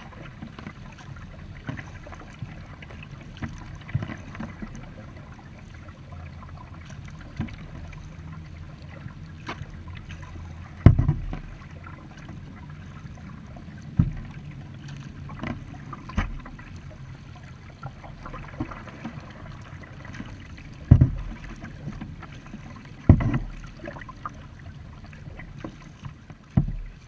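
Kayak being paddled: water splashing and dripping from the paddle strokes over a steady low rumble, with about six loud, sharp thumps scattered through, the loudest about a third and three-quarters of the way in.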